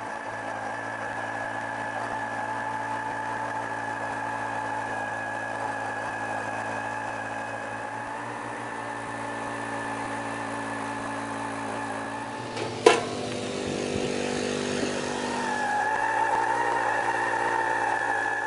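Ditch Witch 1030 walk-behind trencher's engine running steadily as its digging chain cuts a trench through soil. A single sharp knock about 13 seconds in, and the engine note shifts slightly higher a few seconds later.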